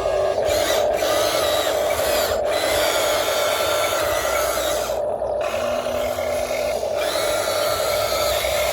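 Small electric motors and gearboxes of a radio-controlled model construction machine whining under a constant hum, with stretches of higher-pitched gear grinding that start and stop several times as the machine moves.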